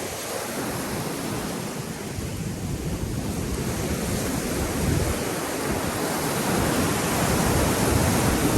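Sea waves washing in, with wind buffeting the microphone. The rush swells louder in the second half.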